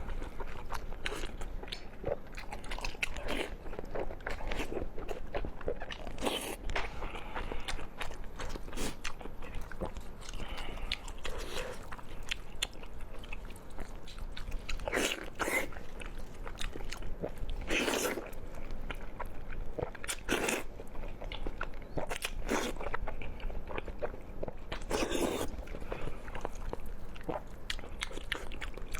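Close-miked eating: a person biting and chewing food with wet, crunchy mouth sounds, in an uneven run of small crunches broken by several louder crunchy bites.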